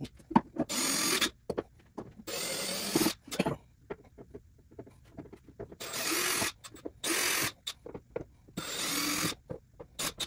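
Cordless drill/driver running in five short bursts, each about half a second to a second long, as it backs screws out of a wooden fence strip on a CNC wasteboard. There are faint clicks and handling noises between the bursts.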